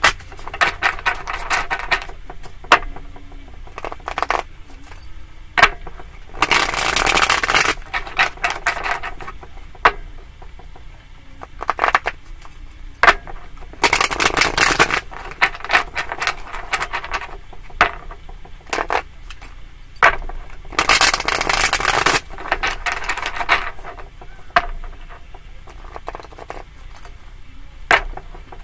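A tarot deck being shuffled by hand: three riffle shuffles about seven seconds apart, each a dense flutter of cards lasting about a second, with light taps and slides of the cards in between.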